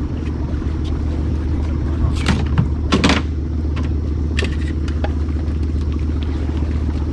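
Small outboard motor on a Gheenoe skiff running at low speed, a steady low hum. Over it come a few sharp rustles of mangrove branches and leaves brushing past the boat, the loudest about three seconds in.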